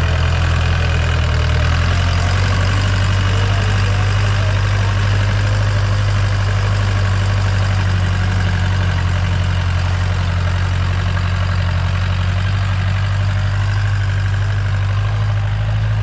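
Four-cylinder diesel tractor engine of about 100 HP, swapped into a Mahindra tractor, running steadily under load as it pulls a disc harrow through ploughed soil. The engine note lifts slightly about two seconds in.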